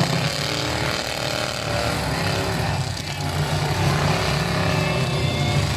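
Several demolition derby trucks' engines running and revving together, their revs rising and falling.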